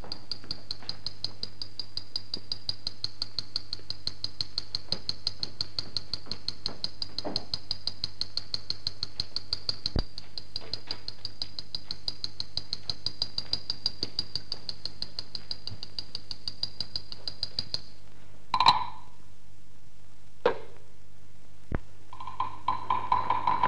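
Teochew opera percussion: a fast, even tapping, several strokes a second, with a high ringing tone over it, which stops about three quarters of the way through. A few single strikes follow, and a held tone comes in near the end.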